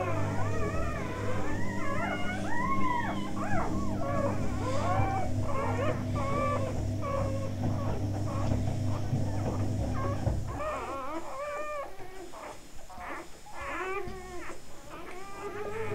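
Newborn Labrador puppies squeaking and whimpering, many short, high cries rising and falling and overlapping one another. A steady low hum runs beneath and stops about ten seconds in.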